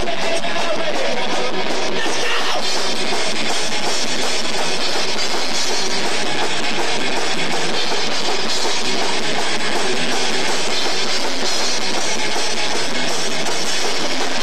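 Live rock band playing loud: electric guitars over a full drum kit.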